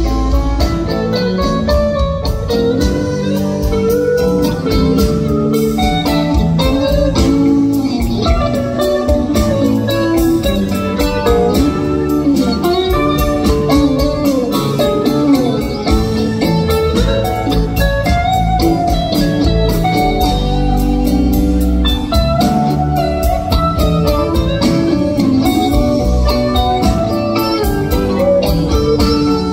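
Live rock band playing a slow song, with an electric guitar playing lead lines over drums, bass and keyboards.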